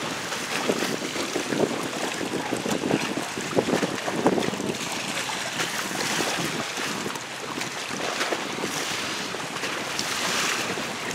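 Wind buffeting the microphone over the sound of choppy sea water and waves, a steady rough rush with irregular gusts.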